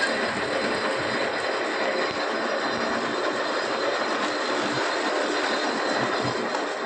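Workshop machinery running steadily: a continuous, even mechanical noise with faint steady tones.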